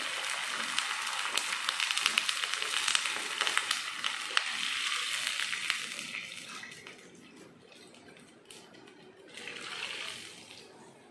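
Water poured into a pan of hot oil and sautéed onions, hissing and crackling loudly, then dying down after about six seconds. A brief second hiss near the end as the last of the water goes in.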